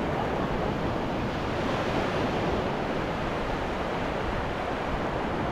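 Ocean surf washing onto a beach: a steady rush of waves that swells slightly about two seconds in.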